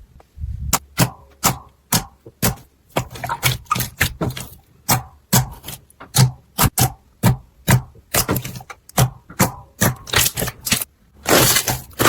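Slime being pressed and squeezed by hand, giving an irregular run of sharp, wet clicking pops from trapped air, several a second, with a longer crackling squish near the end that cuts off suddenly.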